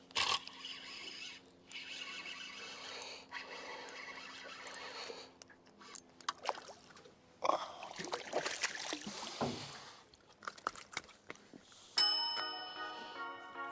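Irregular rustling and scraping handling noises with scattered clicks, then background music comes in suddenly about twelve seconds in and is the loudest sound.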